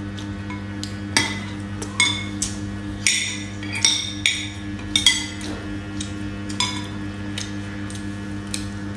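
Metal spoons and forks clinking and scraping on ceramic plates, a quick string of sharp clinks from about a second in to the middle, then one more, over a steady low hum.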